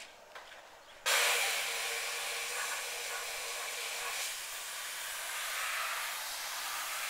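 Compressed air blasting steadily from an air nozzle into a small 90mm pulse jet's intake to start it, a loud hiss that switches on abruptly about a second in.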